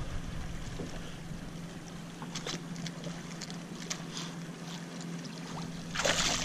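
A hooked bass splashing at the surface as it is scooped into a landing net beside the boat, loudest near the end. Before that come scattered light ticks and water lapping over a steady low hum.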